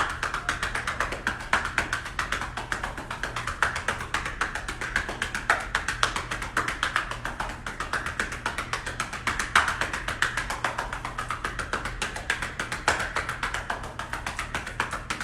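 Hands patting rapidly and steadily on a person's back: chest physiotherapy percussion to break up and loosen mucus in the lungs.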